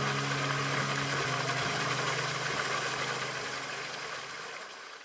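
Background music with a sustained low chord over a soft hissing wash, fading out to silence at the end.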